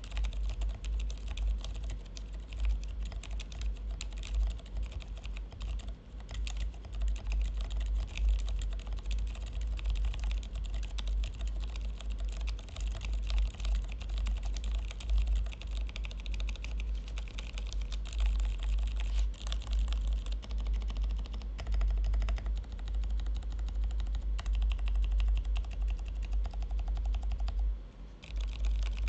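Steady typing on a mechanical keyboard fitted with 80Retros Film Game 1989 silent switches. The keystrokes come thick and fast, with a brief pause near the end.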